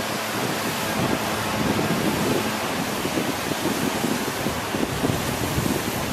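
Steady rush of river water running over rapids, with wind buffeting the microphone in uneven low gusts.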